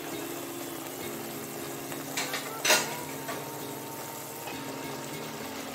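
Thick masala gravy bubbling in a pan on the stove. A few sharp clicks come between two and three seconds in, the loudest near three seconds.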